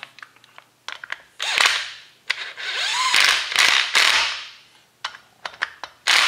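Cordless impact driver running Allen head screws down into a jet pump's cone, hammering in rapid clicks in several bursts, the longest lasting about two seconds, as the screws are driven down until they bottom out.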